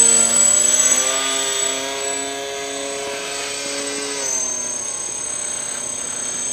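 Twin Exceed RC Alpha 300 electric motors and propellers on an Art-Tech Wing Dragon RC plane, running with a propeller hum and a thin high motor whine. The pitch rises slightly about a second in and drops about four seconds in as the throttle changes.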